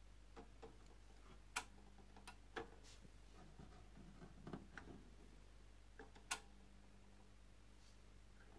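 Near silence broken by a few faint clicks and taps as the tonearm of a Pioneer PL-200 direct-drive turntable is handled, lifted from its rest and moved over the spinning record; the sharpest clicks come about a second and a half in and about six seconds in. A faint low hum sits underneath.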